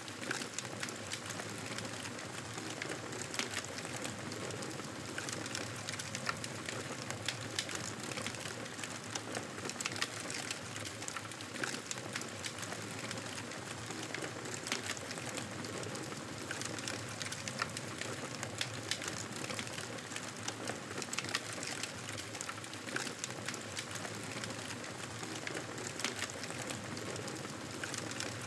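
Campfire burning with a steady soft hiss and frequent small sharp crackles and pops from the burning wood.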